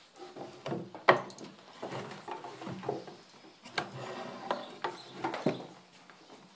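A yearling Arabian horse being saddled with a small western saddle: irregular knocks, creaks and rubbing of the saddle and tack against the horse, with the sharpest knock about a second in.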